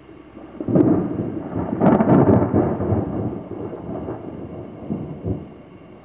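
A thunderclap that breaks in with a sharp crack under a second in, cracks several more times as it swells again around two seconds, then rolls and rumbles away over the next few seconds. Steady rain falls underneath.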